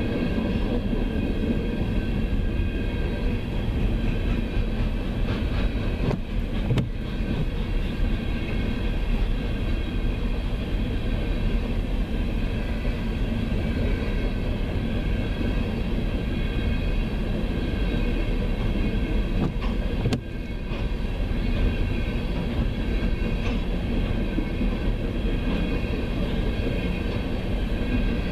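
Loaded coal hopper cars rolling slowly past, a continuous low rumble of steel wheels on rail, with steady high ringing tones over it. Heard from inside a car.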